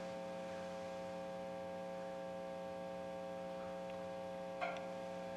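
Steady electrical mains hum from an amplified bass guitar setup: a low buzz with many overtones. A brief faint rustle of handling about four and a half seconds in.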